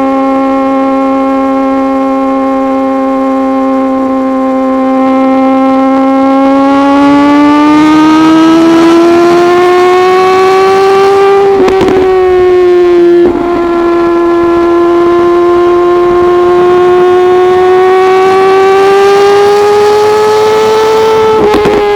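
Suzuki GSX-R1000R inline-four engine through an untuned M4 full exhaust system, running at high revs under way, its pitch climbing slowly as it pulls. The tone breaks briefly and settles a little lower about halfway through, then climbs again and breaks once more near the end: upshifts.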